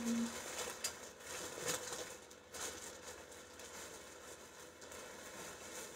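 Faint rustling and crinkling with a few short, sharp crackles: garments in plastic packaging being handled.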